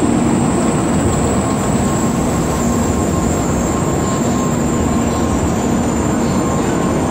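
Shinkansen bullet train cars rolling past the platform at close range: a steady rush of running noise with a faint whine.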